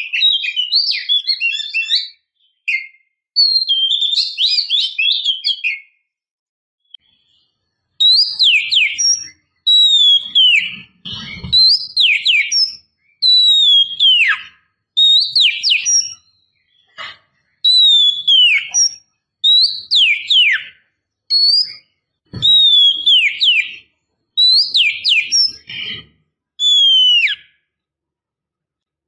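Female Oriental magpie-robin (kacer) calling: a run of fast chattering notes, then after a short pause the same call repeated about every two seconds, each a clear downward-sliding whistle with a few quick notes around it. These are the breeding-condition calls of a female, used as a lure to set males singing.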